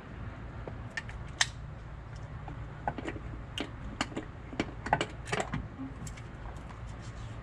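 Irregular small metal clicks and taps as a TH400 automatic transmission's valve body is handled and worked loose by hand, with a low steady hum underneath.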